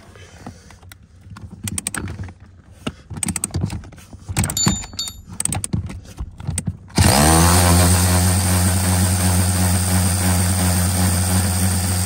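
Cordless DeWalt electric ratchet with a 13 mm socket backing out a seat-mounting bolt. Scattered clicks come first, then about seven seconds in the ratchet motor starts suddenly and runs steadily and loudly.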